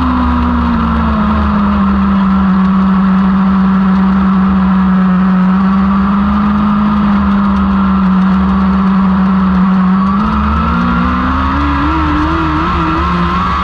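1000cc motorcycle engine of a Lightning sprint car running hard around a dirt oval: its note eases off slightly at first, holds steady for several seconds, then climbs again near the end as it accelerates.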